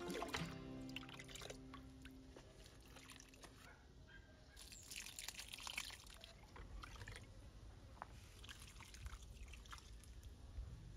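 Faint water dripping and trickling, with scattered small drips and a louder splash of hiss about five seconds in. Background music dies away in the first couple of seconds.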